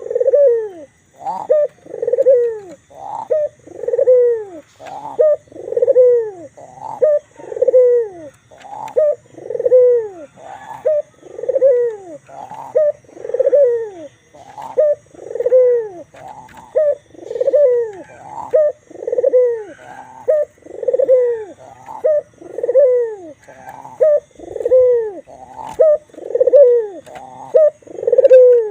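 White Barbary dove (ringed turtle dove) cooing vigorously, the short falling coos repeating steadily about once a second.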